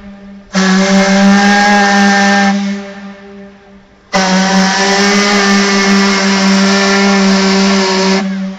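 A boat's steam whistle blowing two blasts, a deep steady tone: a short one of about two seconds, then after a pause a longer one of about four seconds.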